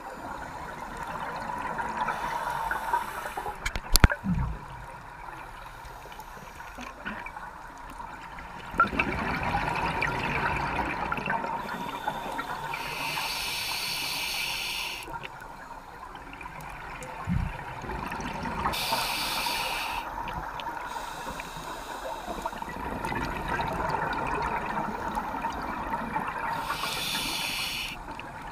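Scuba diver breathing through a regulator underwater: a steady bubbling, gurgling rush with hissing surges every six to eight seconds. There is a sharp knock about four seconds in.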